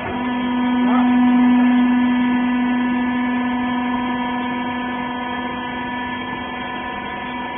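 Hydraulic pump unit of a horizontal wiper-rag baler running with a steady hum. It swells louder over the first second or so, then eases slowly.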